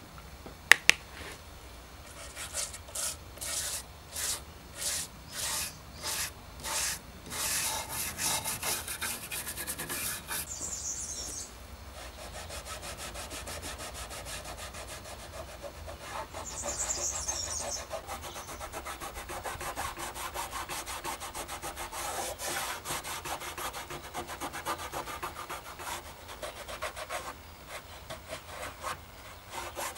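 A cloth rubbing a graphite coating onto an iron strap on a wooden trough. It starts as separate strokes about twice a second and turns into continuous quick rubbing about halfway through. A couple of sharp knocks come about a second in.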